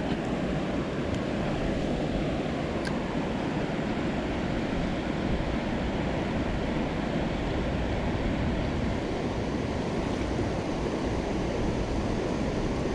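Steady rushing of a river's current over a rocky riffle, with wind buffeting the microphone.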